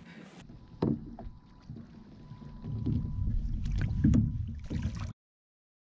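Wind rumbling on the microphone aboard a kayak on open water, louder in the second half, with a single sharp knock about a second in. The sound cuts out to silence near the end.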